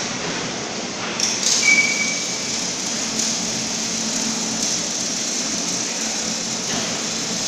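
Steady hiss and low hum of running machinery, with a few light clicks about a second in and a short high beep just after.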